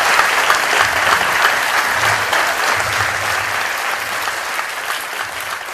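Audience applauding, a dense clapping that slowly dies down.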